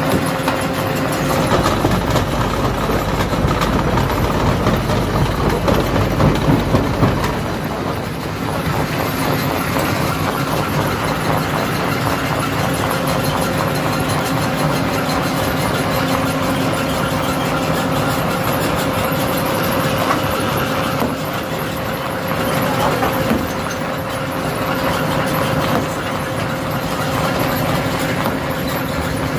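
Rock crusher running: a steady machine hum under continuous rattling and crunching of stone, heavier and louder for the first several seconds.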